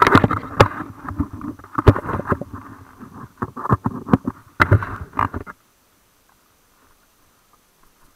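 Irregular knocks, clatter and rubbing right on the microphone of a bike-mounted camera as it jolts and is moved about. The noise cuts off abruptly about five and a half seconds in, leaving near silence.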